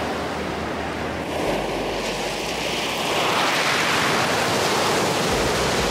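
Gulf surf breaking and washing up over a beach of packed seashells, a steady rush of water and foam that grows a little louder about three seconds in.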